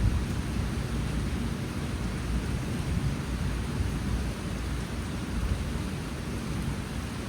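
Monsoon rain falling steadily, with a low rumble underneath that is strongest at the start and eases slightly.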